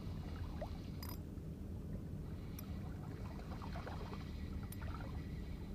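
Steady low rumble of wind and sea water at a rocky seawall, with a few faint, sharp clicks spaced through it.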